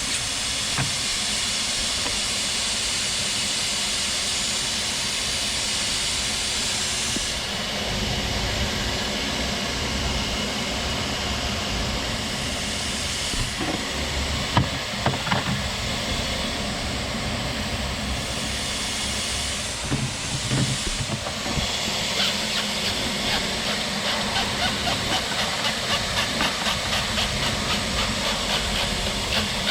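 Shop vac running as a blower to pressurise a car's exhaust for leak testing: a steady rushing hiss of air over a steady motor hum. The high part of the hiss drops away about seven seconds in and briefly comes back twice, and an even, fast pulsing joins near the end.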